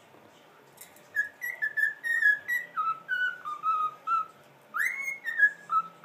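Cockatiel whistling a string of short, clear notes starting about a second in. The notes step from higher to lower pitch, and a louder phrase starts near the end.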